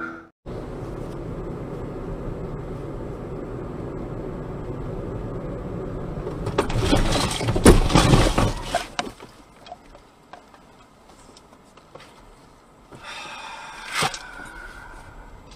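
Car collision heard from inside the cabin: steady road noise, then about six and a half seconds in a loud crunching impact with cracking and scraping that lasts a couple of seconds. A shorter, sharper sound follows near the end.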